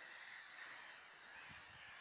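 Near silence: faint steady outdoor background hiss, with a few soft low bumps near the end.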